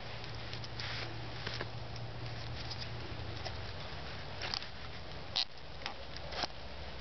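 Hand-work lashing cordage around the stick tines of a bushcraft rake: rustling and brief crackles of sticks, cord, dry leaves and jacket sleeves, several sharper crackles in the second half.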